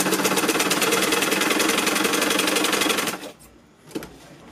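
Sewing machine stitching at a fast, even rate as a zip is sewn onto a jacket panel, stopping abruptly about three seconds in, then a few faint clicks.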